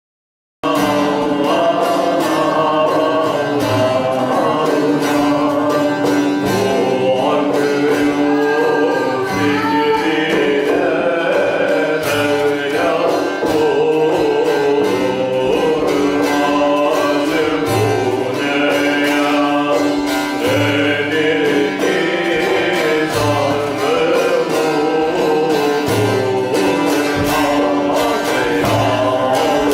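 Spiritual song: voices singing a melody over instrumental accompaniment with steady low notes, starting abruptly about half a second in.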